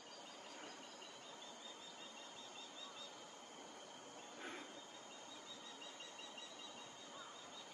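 Faint natural ambience: steady high-pitched trilling of insects, several tones at once, with one short call about four and a half seconds in.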